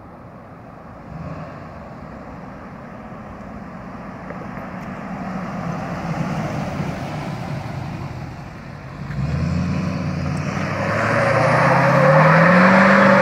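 Duramax V8 turbodiesel in a Hummer H2 driving, then revving hard with its pitch climbing about nine seconds in. From about eleven seconds in, the tires spin and squeal loudly in a burnout.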